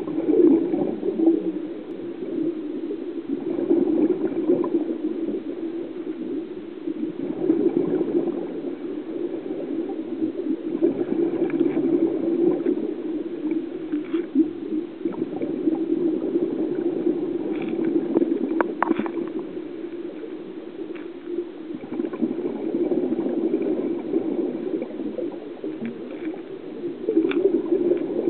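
Muffled underwater water noise picked up by a submerged camera: a low rushing gurgle that swells and fades every few seconds, with a few faint clicks and one sharper click about two-thirds of the way through.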